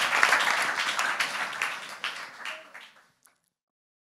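Audience applauding, the claps thinning out and fading away about three seconds in.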